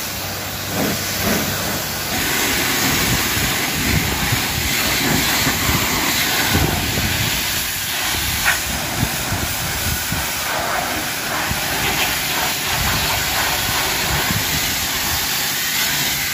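High-pressure washer lance spraying a jet of water onto a van's bodywork: a steady, loud hiss of spray.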